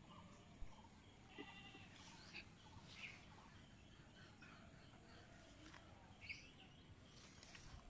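Quiet rural ambience with faint, short animal calls scattered through it, and a few soft clicks.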